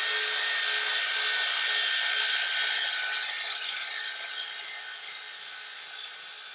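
Handheld power tool running at speed as it roughens the ground cast-iron ways of a mill saddle, so that Turcite epoxy will bond. It is a steady whine with a few pitched tones and slowly fades in the second half.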